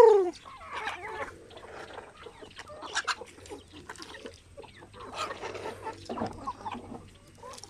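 A mixed flock of heritage chickens clucking softly as they forage, with scattered short calls and small clicks. The tail of one loud, drawn-out call from the flock cuts off right at the start.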